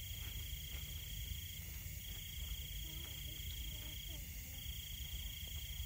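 Crickets trilling at one steady high pitch, in long trills of two to three seconds with short breaks, over a low rumble.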